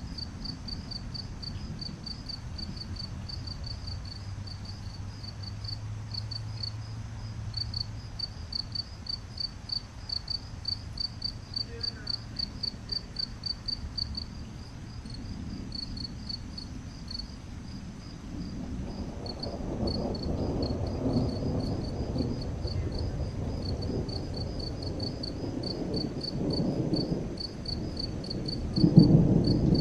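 Crickets chirping in a steady, evenly pulsing trill. From about two-thirds of the way in, thunder rumbles and rolls in low swells, with a louder clap of thunder near the end.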